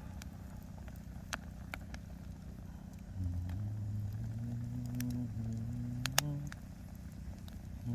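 Firewood burning in a campfire, giving occasional sharp pops and crackles. About three seconds in, a low, steady motor hum starts. It rises slightly in pitch and then stops about a second and a half before the end.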